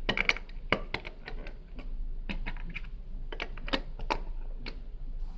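Plastic Lego pieces clicking and tapping as they are handled and pressed together: irregular sharp clicks, several a second.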